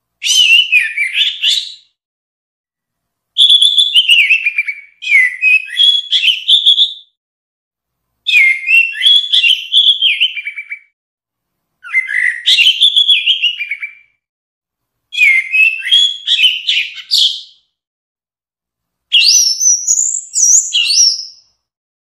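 Orange-headed thrush singing: seven phrases of about two seconds each, made of quick rising and falling notes, with short pauses between them; the last phrase sits higher in pitch.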